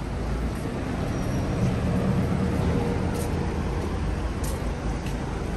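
City street traffic: a steady low rumble of passing vehicles, swelling briefly as one goes by about two seconds in.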